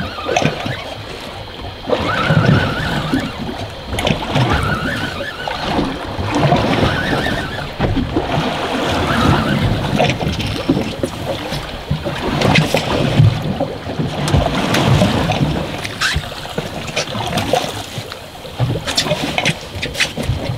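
Small boat's hull slapped by choppy ocean waves as it drifts, with wind buffeting the microphone; the water noise rises and falls every couple of seconds.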